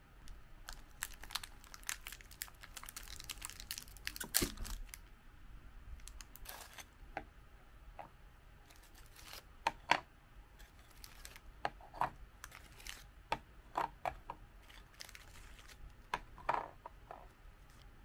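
A foil-lined plastic biscuit wrapper crinkling and tearing open, loudest about four seconds in. This is followed by more crinkling and a scatter of light clicks and taps as crisp biscuits are slid out and set down on a ceramic plate.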